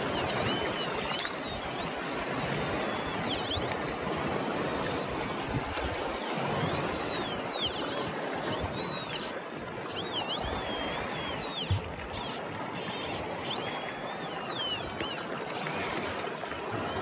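Handheld electronic metal detector (prospecting meter) sounding a high, thin tone that glides up and down again and again as the probe is swept over copper-bearing rock. Its pitch rises and falls with the metal it picks up. Underneath runs a steady rushing noise of water.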